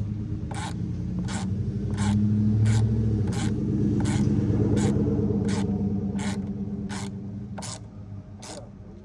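A steady ticking, one sharp tick about every 0.7 seconds, over a low mechanical hum that swells in the middle and fades near the end.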